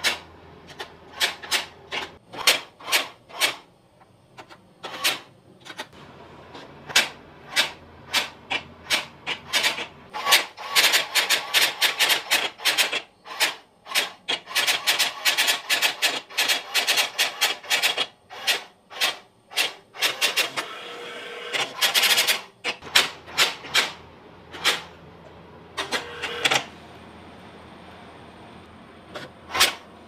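Brother AX-325 daisy-wheel electronic typewriter striking characters onto paper: separate clacks at typing pace at first. From about ten seconds in comes a long, fast, unbroken run of strikes lasting some twelve seconds as the machine prints the AI's reply, then spaced clacks again.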